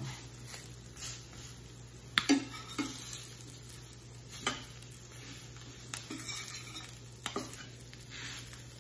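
Metal spatula scraping and clinking against a stainless steel skillet as crab cakes are slid up and flipped, over the faint sizzle of the cakes frying in butter. Several sharp clinks come at irregular moments, the loudest about two seconds in.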